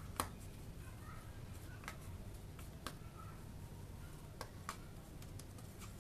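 A few light, sharp taps and clicks as hands roll pieces of bread dough into balls on a wooden chopping board, the loudest just after the start, over a low steady hum.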